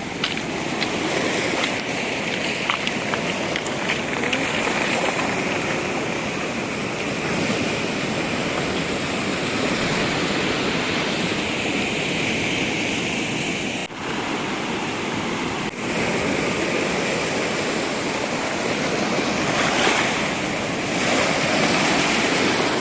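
Ocean surf washing onto the beach, a steady rushing noise.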